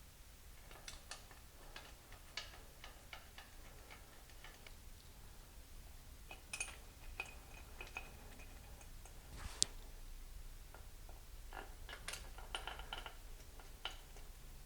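Faint, scattered metal clicks and ticks of hand tools on stainless intake-manifold bolts as they are run into an aluminium intake, with one sharper click about ten seconds in and a quick run of clicks near the end.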